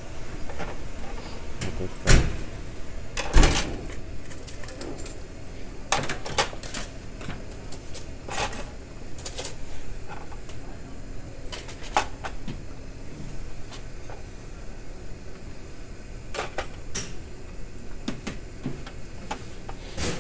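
Irregular clatter and knocks of a plastic cafeteria tray being slid along a metal tray rail and loaded with a spoon, a juice carton and ceramic side-dish bowls. The two loudest knocks come about two and three and a half seconds in.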